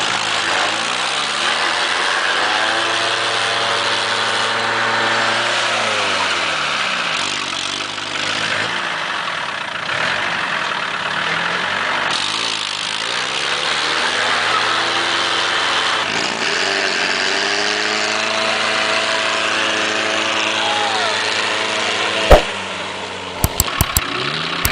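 Off-road 4x4 engine revving hard, its pitch climbing, holding and dropping away twice over a steady rush of noise. A few sharp knocks come near the end.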